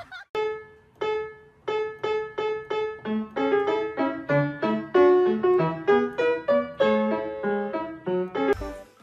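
Background piano music: a simple tune of single notes at an even pulse, with a lower second line joining about three seconds in. A short noisy burst comes near the end, and then it cuts off.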